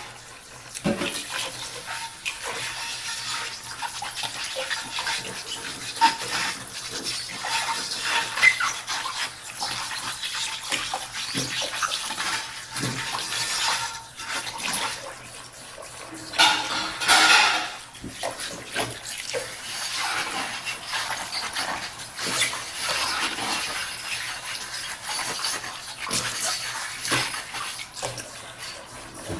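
Dishes being washed by hand in a sink: water splashing and running, with scrubbing and frequent short clinks and knocks of dishes. A louder rush of water comes a little past halfway.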